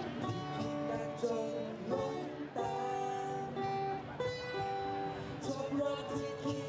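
Music led by a strummed acoustic guitar, its notes held and changing about once a second.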